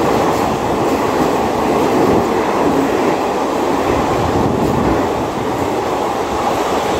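Passenger train running at speed past a station platform: a steady, loud rumble of coaches and wheels on the rails.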